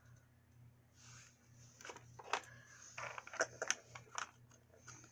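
Small plastic toy packaging being handled and opened by hand: irregular crinkling and sharp little clicks, starting about a second in.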